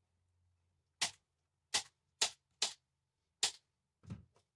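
Staple gun driving staples through upholstery fabric into a wooden frame: five sharp snaps at uneven intervals. Near the end comes a duller thump.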